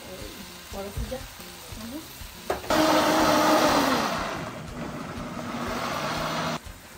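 Low sizzling from pots on the stove, then about two and a half seconds in a countertop blender switches on, runs loud and steady for about four seconds on a full jar of liquid, and cuts off abruptly.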